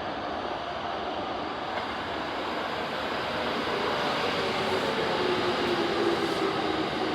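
Keikyu electric commuter train moving along the platform, a steady rumble of wheels and motors with a tone that falls in pitch over the second half.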